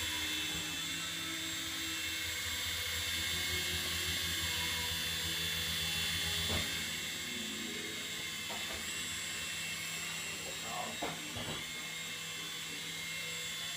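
Toy coaxial RC helicopter in flight: its small electric rotor motors give a steady high-pitched whine over a low hum from the spinning blades.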